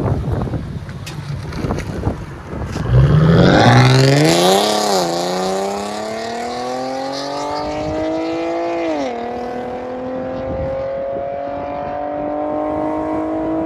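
Infiniti G37's 3.7-litre V6 through an aftermarket exhaust, accelerating hard as the car pulls away. Its pitch climbs steeply from about three seconds in, drops at upshifts about five and nine seconds in, then rises more slowly.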